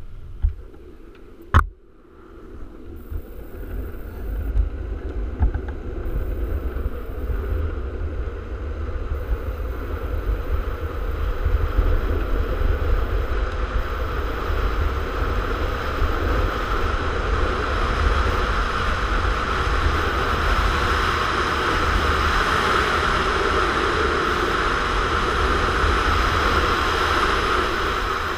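Wind rushing over a helmet-mounted microphone with the roar of street luge wheels rolling on asphalt during a fast downhill run, building over the first several seconds and then holding steady. A single sharp knock sounds about a second and a half in.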